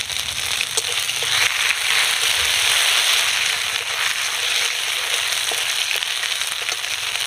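Tempering of bay leaf, cumin, dried red chilli and ginger paste sizzling in hot mustard oil in a metal kadai, with scattered crackles and pops as it is stirred with a spatula. The sizzle grows louder about a second and a half in.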